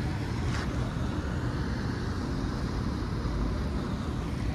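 Steady low wind rumble on a moving microphone over an even hiss from the wet street.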